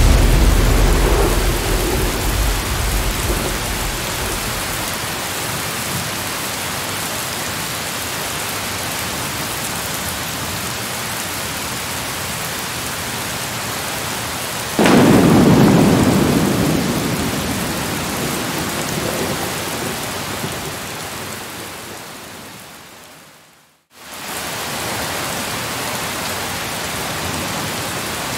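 Steady rain with rolling thunder: a rumble at the start that dies away over a few seconds, and a second, louder rumble about halfway through that slowly fades. A few seconds before the end the whole sound fades to silence and then comes straight back in, as a looped ambience track does.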